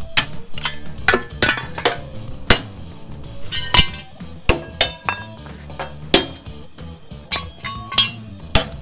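Hammer striking a steel chisel against the rusted steel brackets of an old truck chassis to knock them off: irregular sharp metallic blows, roughly two a second.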